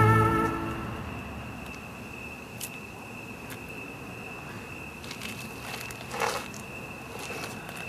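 Brass score fading out in the first second, then quiet with a steady high thin tone and a few soft rustles of a paper-bagged bottle being handled and drunk from, the loudest about six seconds in.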